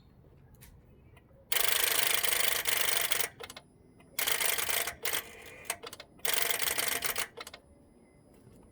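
Starter solenoid of a 2007 Honda Accord Euro chattering in three bursts as the key is turned to start, the engine not cranking: the battery is dead and has not enough power to start the engine.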